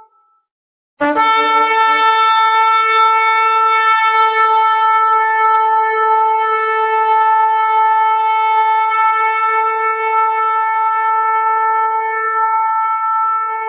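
A shofar, the ram's-horn trumpet, sounds suddenly about a second in after a moment of silence. It rises briefly from a lower note, then holds one long, steady blast.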